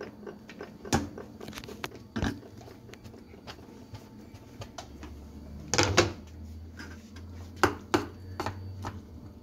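Metal spoon clicking, knocking and scraping in a bowl of instant noodles as chopped ingredients are tipped in off a cutting board and stirred, with a few louder knocks.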